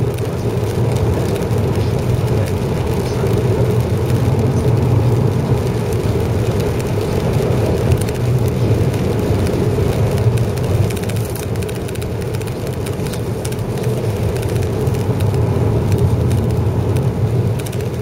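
Steady road noise inside a car driving on a wet highway: a low hum with tyres hissing on the rain-soaked pavement.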